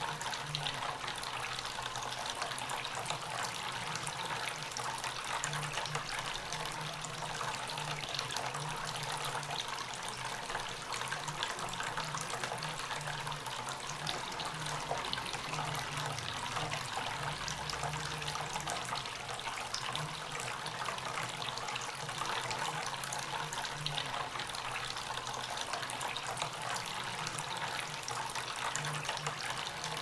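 Tabletop water fountain running: a steady trickle of water spilling from pot to pot and splashing into the basin below.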